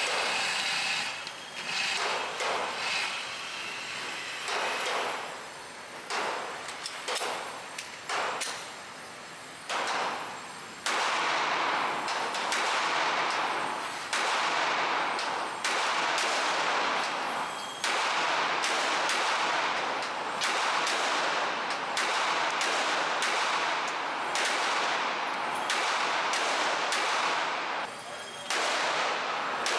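Handgun shots fired on a shooting range, each sharp crack followed by a short echo; scattered at first, then coming thick and fast from about eleven seconds in.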